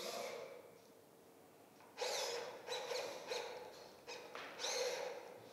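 Small servo motors of robotic drawing arms whirring in a string of short bursts, some gliding up and down in pitch, one at the start and several more from about two seconds in.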